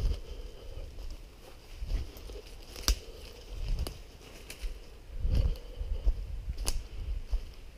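Footsteps crunching through leaf litter and dry undergrowth, a dull thud with each step, and two sharp twig snaps, one about three seconds in and one near the end.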